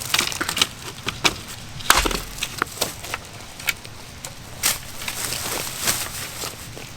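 Dry wood snapping and cracking in a run of irregular sharp cracks, the loudest about two seconds in.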